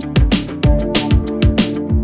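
Electronic background music with a steady, punchy beat of deep falling bass-drum hits under sustained synth notes.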